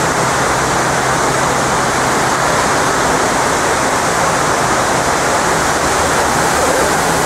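Steady rushing roar of the 9/11 Memorial's south pool waterfall, water pouring down the pool's walls into the basin.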